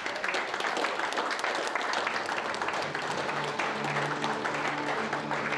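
A room of people applauding, many hands clapping steadily, starting suddenly. Background music comes in underneath about halfway through.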